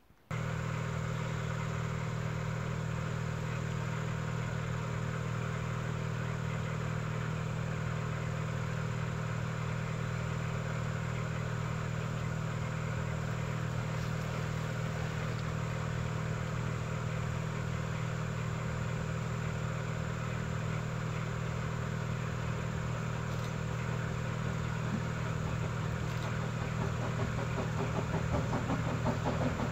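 An engine running steadily with a low, even hum, growing a little louder near the end.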